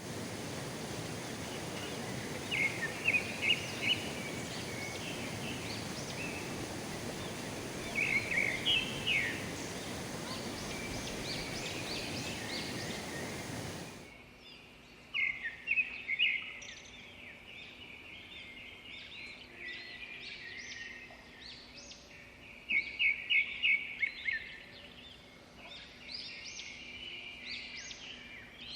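Small birds chirping in short, rapid clusters of notes, over a steady hiss that cuts off abruptly about halfway through, leaving the chirps over a quieter background.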